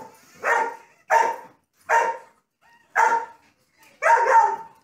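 A dog barking repeatedly: five barks, roughly one a second.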